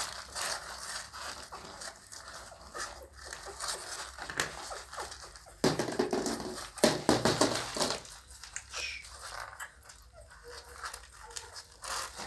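Newborn pit bull puppies nursing from their mother, giving small squeaks and whimpers over soft clicks and rustles. A louder stretch of rustling comes about six seconds in.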